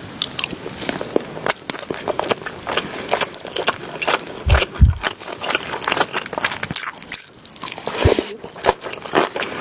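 Close-miked eating: a person biting and chewing crunchy food, with dense crackling crunches and a few low thumps around the middle and near the end.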